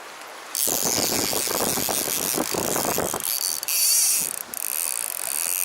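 Fly reel's click-and-pawl drag clicking rapidly as line is pulled off by a hooked rainbow trout, a fast run of clicks lasting about two and a half seconds.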